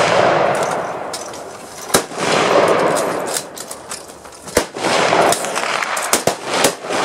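Gunshots from several shooters along a range firing line, a dozen or so at irregular intervals, some followed by a long rolling echo.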